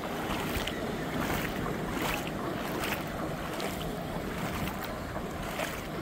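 Seashore ambience: wind buffeting the microphone over the steady wash of surf.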